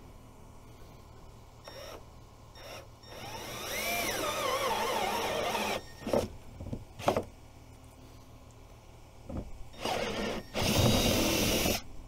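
Cordless drill with a step bit boring a hole through a plastic console panel. The motor's whine wavers as the trigger is worked. There is one long run starting about three seconds in, a few quick trigger blips, then two shorter runs near the end.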